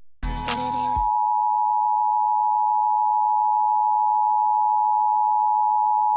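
Emergency Alert System two-tone attention signal: a steady dual tone just below 1 kHz, held unbroken, marking the start of a new alert. It is preceded by a brief burst of noise in the first second.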